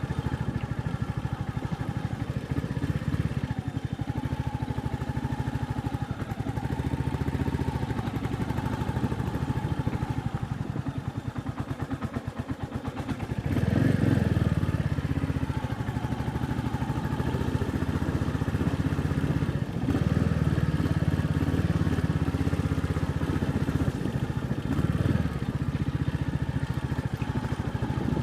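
Royal Enfield Meteor 350's single-cylinder engine running under a slow off-road ride, easing off about ten seconds in and pulling harder again about halfway through.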